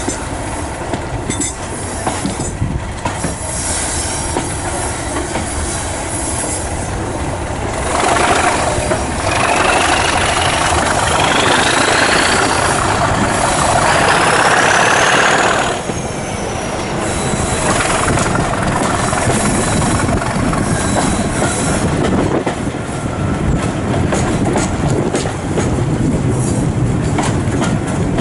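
English Electric Class 37 diesel locomotive D6948 working a train, heard from an open window of a carriage behind it, with the clatter of the coach wheels. About eight seconds in the locomotive gets louder for several seconds. A whistle rises in pitch twice and then falls away as it eases off, typical of the Class 37's turbocharger as the engine opens up.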